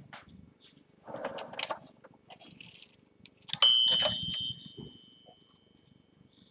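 1957 Olympia SM3 DeLuxe manual typewriter being worked: scattered mechanical clicks and clatter, then one sharp ding of its carriage margin bell about three and a half seconds in, ringing out for about a second.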